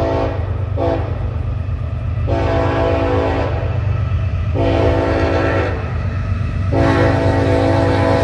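Locomotive horn sounding a series of blasts: two short ones close together, then three long ones about a second apart. A steady low rumble of the train runs underneath.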